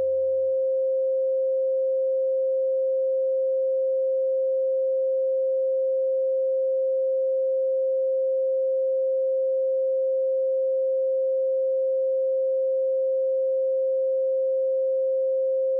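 A single steady pure tone at about 530 Hz, held unchanged. Faint lower tones from a preceding chord fade out within the first second.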